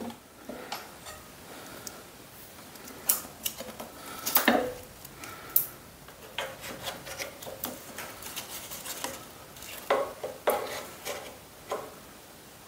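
Fairly faint metal clinks, scrapes and knocks as an ArcDroid portable CNC plasma cutter is worked loose and shifted on its steel slide rail, with about half a dozen sharper clanks among quieter rubbing.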